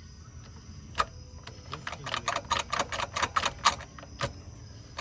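Loud mechanical clicking: a single click about a second in, then a fast, uneven run of clicks, several a second, for about two seconds, and one more click near the end.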